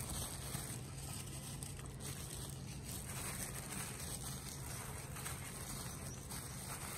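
Rustling and crinkling as a hand in a thin plastic glove stirs coarse coco fiber and coco chunks through soilless potting mix, over a steady low hum.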